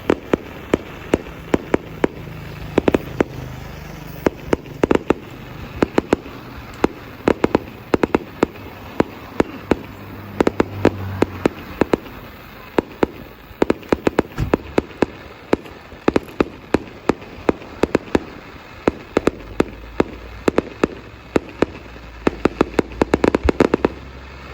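Fireworks display: a rapid, irregular series of sharp bangs from bursting shells, often several a second, with a dense burst of bangs near the end.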